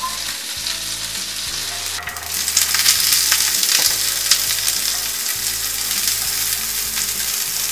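Melted butter sizzling in a hot pan. About two seconds in the sizzle turns louder and crackly as freshly washed green beans are laid into the butter by hand.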